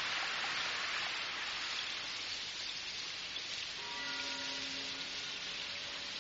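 Steady rain falling, an even hiss. About four seconds in, soft held musical notes come in over it.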